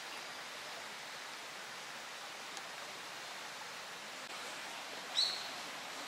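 Steady hiss of forest ambience, with one short high bird chirp about five seconds in.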